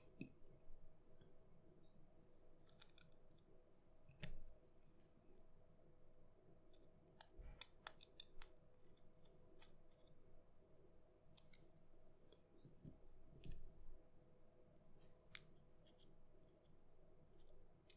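Mostly quiet handling of a PinePhone as its battery is taken out: scattered small plastic clicks and taps, with a couple of soft knocks of the phone being set down or pressed.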